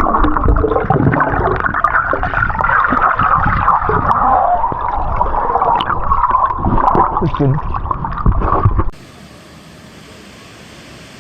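Water gurgling and splashing right against the microphone, with irregular clicks and low rumbles. About nine seconds in it cuts off suddenly to a much quieter steady hiss.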